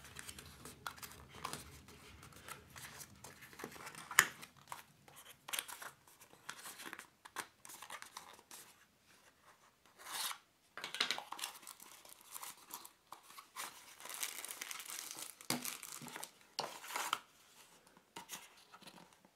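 Thin cardboard box being handled and tipped, its flaps and sides rubbing and scraping, with scattered light taps and rustles as the contents slide out. A longer stretch of rustling comes about two-thirds of the way through.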